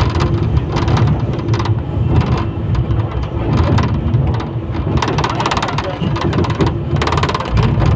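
Inside a moving 71-911EM "Lvyonok" low-floor tram: steady rumble of the wheels on the rails and the running gear, with a faint hum from the traction drive and frequent short knocks and rattles.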